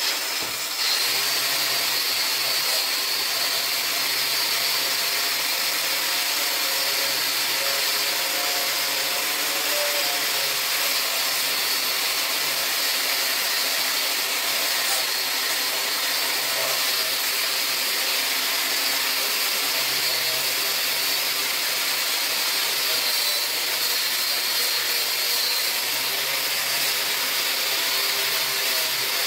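Handheld grinder running steadily against the rusty steel of a Ford Model A frame, stripping rust off the rail. It starts up at once and keeps an even, high-pitched grinding noise throughout.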